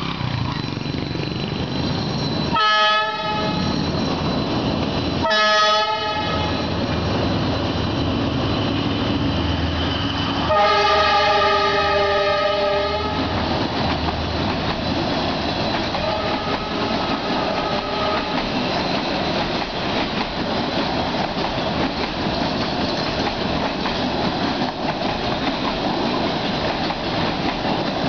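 D19E diesel-electric locomotive sounding its multi-tone horn for the level crossing: two short blasts, then one longer blast about ten seconds in. The passenger carriages of the TN2 train then roll past with a steady clatter of wheels on rail.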